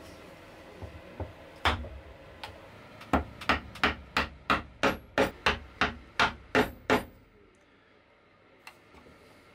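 Mallet striking a chisel to chop a small mortise in cherry wood: one blow, then a steady run of about a dozen blows, roughly three a second, stopping about seven seconds in.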